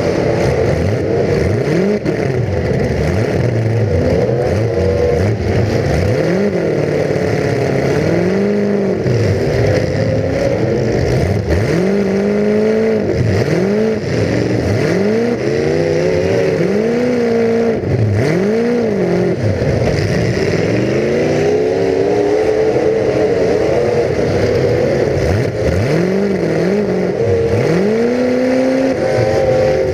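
Full-size demolition derby car's engine heard onboard, revving up and falling back over and over, each rise and fall lasting a second or two, as the car repeatedly accelerates and lets off.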